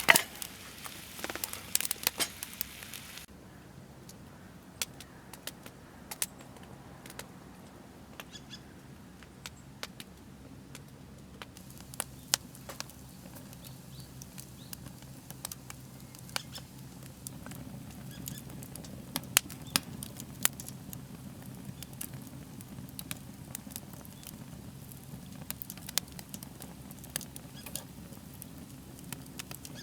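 Wood fire crackling and popping under a grill, with irregular sharp pops. A denser sizzle cuts off about three seconds in.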